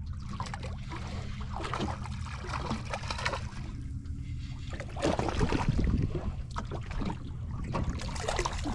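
Water splashing and trickling around a small boat over a steady low hum, louder and busier for a second or so about five seconds in.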